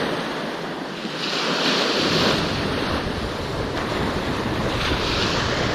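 Ocean surf breaking and washing up the beach, the hiss swelling about a second in and again near the end. Wind gusts buffet the microphone.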